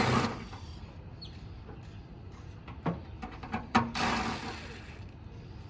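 Handling noises of screws being taken out of a blower motor's mounting bracket: two sharp clicks and a short scraping rush about four seconds in.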